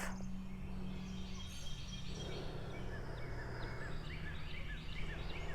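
Birds chirping in the background, many short repeated notes starting about a second and a half in, over a steady low hum and faint room noise.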